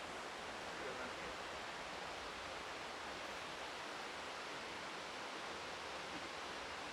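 Rain on the biome's inflated plastic (ETFE) roof cushions, heard from inside as a steady, even hiss.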